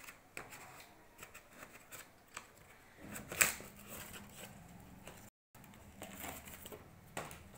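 A mosquito racket being slid out of its cardboard box and sleeve: cardboard scraping and rustling with light knocks, the loudest scrape about three and a half seconds in.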